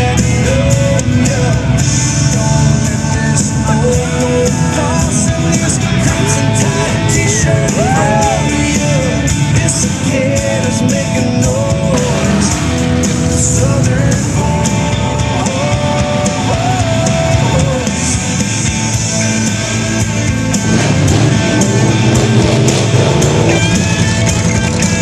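Rock song with a singing voice and a steady drum beat.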